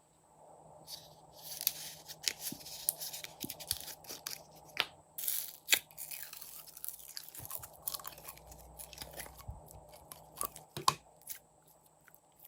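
Clear slime being worked by hand, squished and stretched, giving irregular sticky crackles, clicks and pops.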